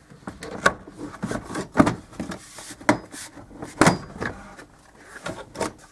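Plastic lower interior trim panel of a first-generation Ford Focus being pried and pulled off around the front seat belt: a series of sharp plastic clicks and knocks with rubbing and rustling in between.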